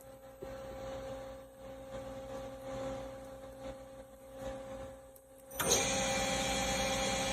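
Doosan Lynx 220A CNC lathe running under power: a steady machine hum with a few faint ticks, stepping up to a louder, even running sound about five and a half seconds in.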